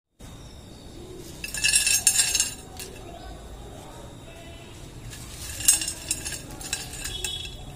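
Crisp fried potato chips tumbling out of a glass bowl onto a ceramic plate, with the clatter of the bowl and a wire skimmer scraping and clinking against the plate. The clatter comes in two spells, about a second and a half in and again from about five seconds.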